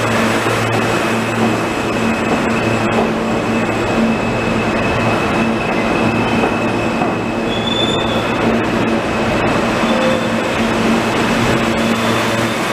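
New York City Subway E train of R160 cars running alongside an underground platform: a steady rumble of wheels on rail with a steady motor hum. A brief high wheel squeal comes about eight seconds in.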